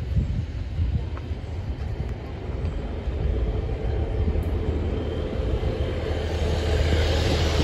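A Class 150 Sprinter diesel multiple unit arriving, its underfloor diesel engines rumbling low and growing steadily louder toward the end.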